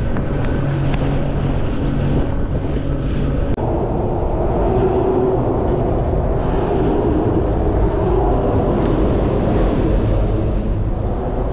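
Boat engine running underway, with wind buffeting the microphone; the engine note shifts abruptly about a third of the way in.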